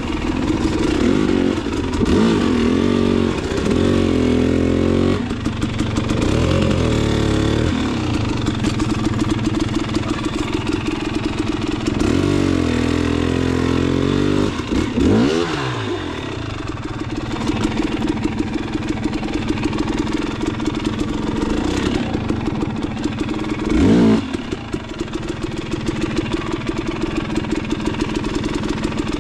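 Dirt bike engine revving up and down again and again as the throttle is worked, with steadier running in between and the loudest sharp burst of revs late on.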